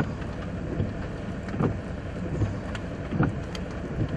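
Steady low wind rumble on the microphone, with soft thumps recurring a little under once a second.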